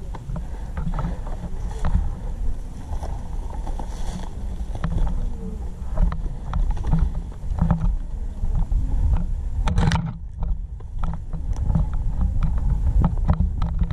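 Low rumble and handling noise on a body-worn action camera, with scattered clicks and knocks.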